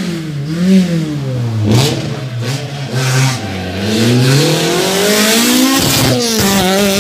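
Rally car engine passing through a bend. The revs drop as it slows for the corner, stay low through it, then climb as it accelerates away, with a brief gear change about six seconds in and a few sharp cracks along the way.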